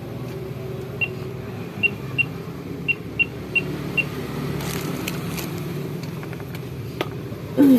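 Seven short electronic beeps, all at the same high pitch, at uneven intervals over about three seconds: keys being pressed one after another on a keypad. A steady low hum runs underneath.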